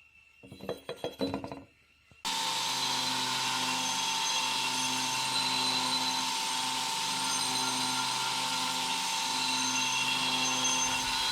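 A few light knocks, then a power grinder starts about two seconds in and runs steadily with a constant whine and a hiss, grinding the hardened steel axe head to final blade shape.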